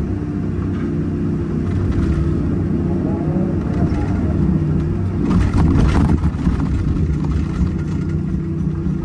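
Hyundai 330 excavator's diesel engine running steadily under load, with a whine from the hydraulics as the boom swings back. About five seconds in comes a louder burst of scraping and rattling lasting about a second, as the bucket bites into stony ground.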